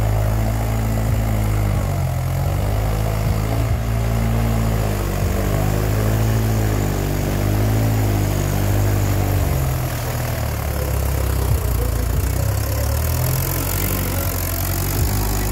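Tractor engine running steadily, a low even drone that wavers slowly in pitch and eases slightly about ten seconds in.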